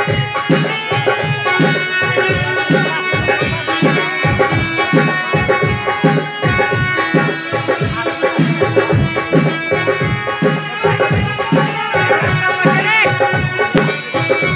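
Live band music: a dhol drum beating a steady rhythm under held keyboard chords, with a shaker-like rattle.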